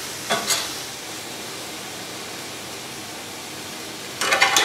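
Nopales (cactus paddles) sizzling on a hot stovetop grill pan as a steady hiss. Metal tongs scrape and clatter against the grates briefly just after the start and again near the end, as the paddles are turned over.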